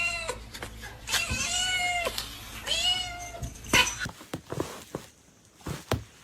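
Domestic cat meowing three times: drawn-out meows that rise and fall in pitch, followed about a second later by a sharp knock and a few faint taps.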